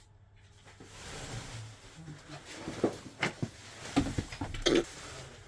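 A few short knocks and clatters, several in quick succession between about three and five seconds in, over a faint low hum.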